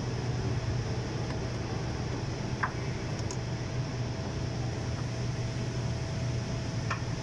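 Steady low mechanical hum with a faint steady whine above it, and a few light clicks as wires are handled with pliers.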